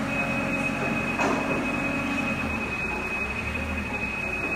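Forklift running with a steady high-pitched whine, over a rumbling, scraping noise as the helicopter's wooden shipping cradle is shifted on the concrete floor. A single knock comes about a second in.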